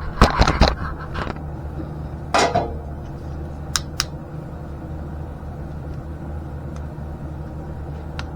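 Metal clanks and clicks from handling exhaust parts and tools: a cluster of knocks at the start, a scrape a couple of seconds in, then two sharp clicks, over a steady low hum.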